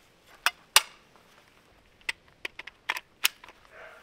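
Sharp metallic clicks and clacks from reassembling a Zastava ZPAP85 AK rifle, as the stamped-steel dust cover is seated back over the recoil spring. There are two clicks about half a second apart near the start, then a quicker run of five or so between two and three and a half seconds in.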